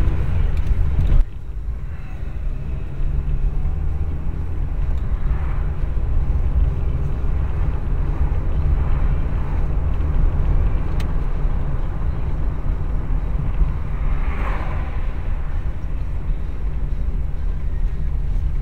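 Car driving on a town road, a steady low rumble of engine and tyre noise heard from inside the cabin through a dashcam's built-in microphone, with a few brief swells of louder noise.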